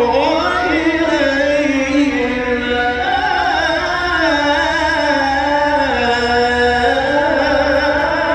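A male Quran reciter holding one long, ornamented melismatic note in the Egyptian tajweed style, the pitch sliding and wavering with vibrato.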